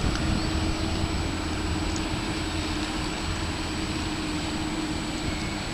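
Sailing yacht's engine running steadily at low speed as the yacht motors out under bare poles, a constant low hum.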